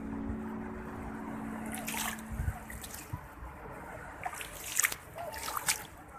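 Seawater splashing and lapping, with a few sharp splashes about two seconds in and again near the end.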